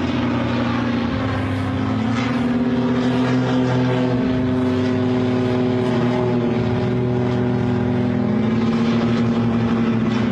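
Propeller engines of two light aircraft flying in close formation, a steady drone whose pitch wavers slightly up and down.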